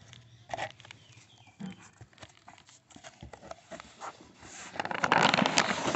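Packaging being handled and torn open: crinkling, tearing and scattered clicks, growing louder and denser in the last second.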